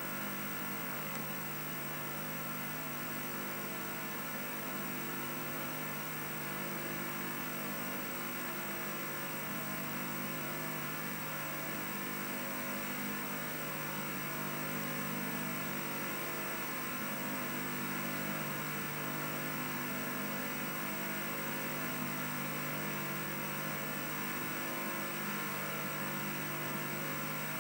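Steady electrical hum with an even hiss, the noise floor of an old analogue video recording with no programme sound.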